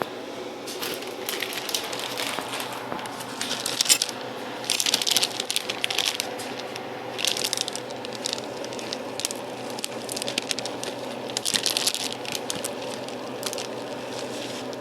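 A series of irregular crinkling and rustling bursts from food wrapping being handled, over a steady low kitchen hum.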